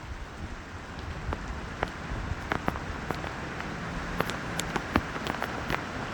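Steady rain falling, an even hiss with many separate sharp drop hits on a near surface.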